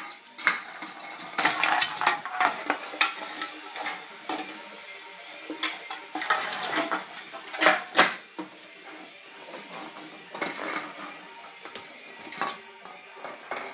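Aluminium Budweiser beer can clattering and scraping on a tile floor as a miniature dachshund puppy pushes and mouths it. Irregular clinks and knocks, the loudest about eight seconds in.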